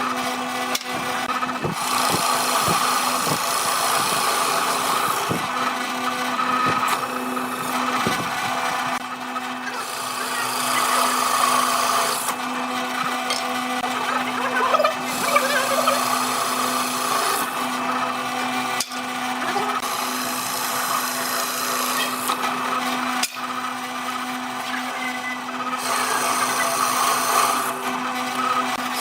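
Electric power tool running on wood: a steady motor hum at one pitch under a rasping work noise that swells and fades, with two short breaks late on.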